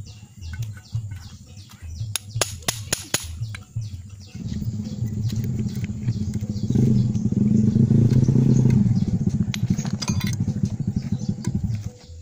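An engine running with a low, pulsing rumble. It gets louder about four seconds in, is loudest a little past the middle, then drops back near the end. A few sharp metallic clinks come early on.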